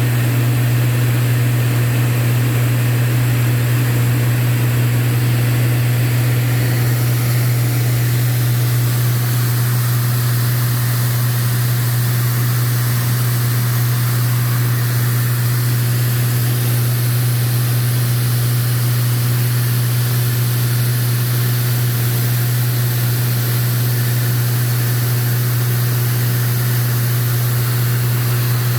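Cabin noise of a Lancair IV-P in cruise flight: the steady, loud drone of the engine and propeller with a continuous hiss of wind rushing past the airframe.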